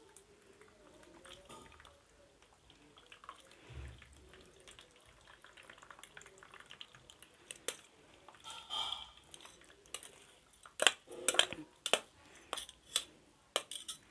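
Boiled grated carrot being pressed with a steel ladle in a perforated steel strainer, with drained water dripping into the basin below. In the second half the ladle clinks and scrapes against the strainer in a string of sharp metal clicks.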